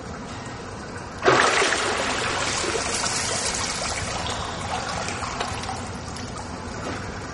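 A swimmer breaks the surface of a pool with a sudden splash about a second in, followed by water streaming off his body and lapping in the pool, slowly fading.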